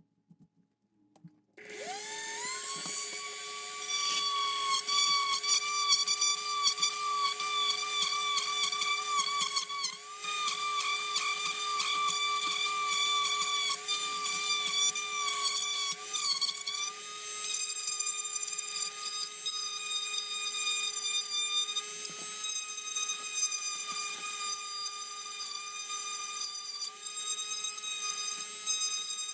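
Small high-speed electric drill with a larger bit spinning up about one and a half seconds in to a steady high whine, cutting an opening through the plastic of a model kit's hull.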